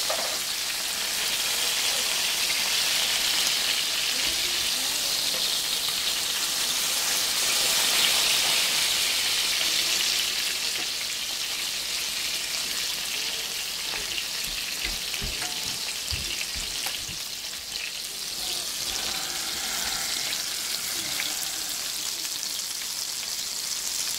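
Flour-coated cube steaks frying in hot grease in a skillet: a steady, loud sizzle, strongest in the first ten seconds or so and then easing a little. The pieces are being turned to fry the second side, and the sizzle is the sign that the grease is hot enough.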